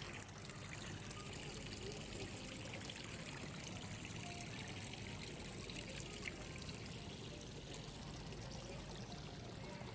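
Fountain water splashing and trickling steadily.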